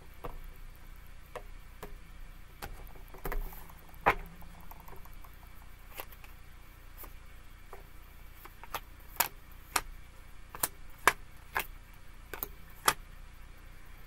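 Tarot cards being handled and then dealt one by one onto a table, each card landing with a short, sharp snap. The snaps are scattered at first, then come more often, about eight of them, in the second half.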